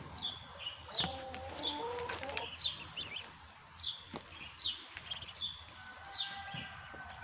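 Muscovy ducklings peeping while feeding: short, high peeps that fall in pitch, about one or two a second. A lower, longer call rises in pitch about a second in.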